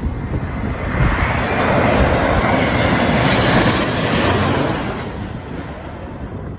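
Jet airliner passing low overhead on final approach to land: the engine noise swells about a second in, holds loud for a few seconds, then fades away.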